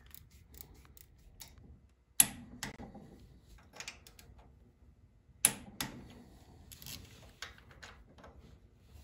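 Inch-pound torque wrench ratcheting on cylinder head bolts, a scatter of small ticks with two sharp clicks about two and five and a half seconds in, as the wrench releases at its set torque of around 220 inch-pounds.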